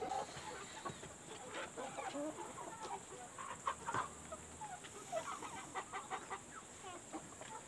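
Chickens clucking faintly in short, scattered calls.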